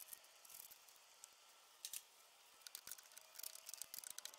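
Near silence, with faint scattered clicks and ticks of hands working wires in a metal electrical box.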